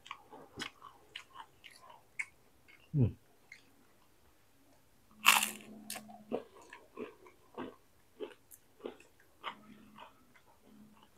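Close-up crunchy chewing of fried tempeh with raw chilies. A loud crisp bite comes about five seconds in, followed by steady crunching chews about two a second.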